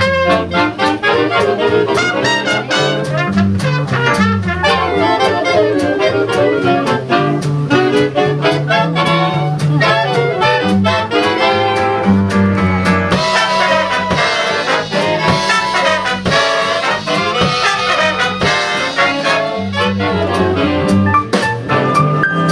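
Live big band jazz: a swinging tune over a walking upright bass and drum cymbals, with a tenor saxophone out front. About halfway through, the trumpets and trombones come in together and the full ensemble grows brighter and louder.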